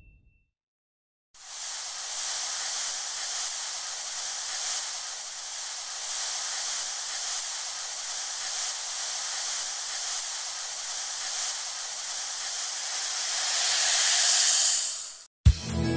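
A steady, even hiss that comes in about a second and a half in, swells near the end and cuts off suddenly, just before music starts.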